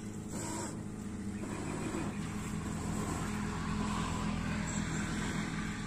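A steady low drone, like a motor running, with an even hiss over it.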